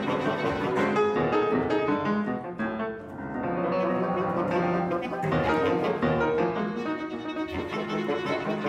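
Chamber ensemble of violin, cello, clarinet, bassoon and piano playing live classical music, with bowed strings prominent. The music thins and softens briefly about three seconds in.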